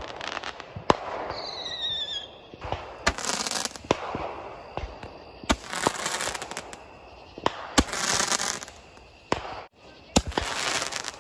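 Consumer fireworks going off: a string of sharp bangs from aerial shells, with several bursts of crackling lasting about a second each. A short whistling tone sounds about a second and a half in.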